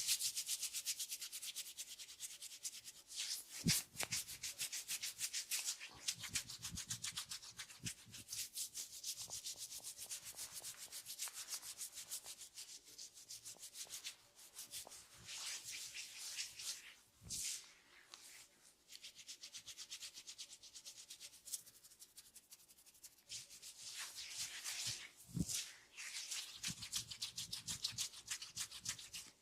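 Hands massaging a head close to the microphone: fingers rubbing and scratching across hair and scalp in quick, fine, hissy strokes. There are a few brief louder knocks now and then.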